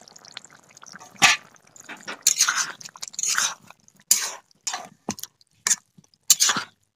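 Metal spatula stirring raw chicken pieces into hot masala in a metal karai: a sharp knock about a second in, then irregular short bursts of scraping, squelching and sizzling.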